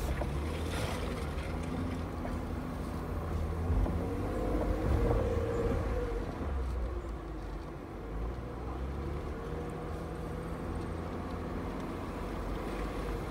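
A vehicle engine running at low revs with a heavy low rumble from the drivetrain and tyres on a rough dirt track, heard from inside the cab. Its pitch drifts up and down a little, strongest around four to six seconds in.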